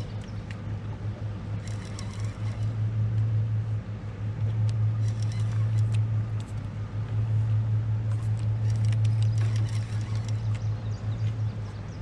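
Steady low hum of a motor running on a fishing boat, with scattered clusters of light ticks over it.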